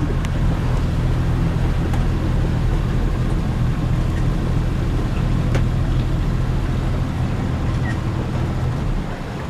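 Outboard motor of a river pleasure boat running steadily, a low droning hum heard from inside the wooden cabin, easing slightly near the end.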